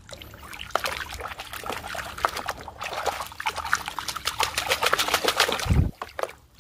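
Muddy water splashing and sloshing in a metal basin as a small plastic brush is scrubbed and swished through it in quick strokes. A short low thump comes near the end.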